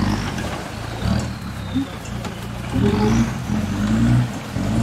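An off-road 4x4's engine running under load at low speed. Its revs rise and fall in surges, loudest about three and four seconds in.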